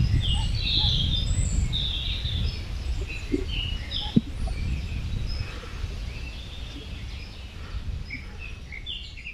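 Outdoor ambience: many small birds chirping over a steady low rumble, with one brief knock about four seconds in, the whole gradually fading down.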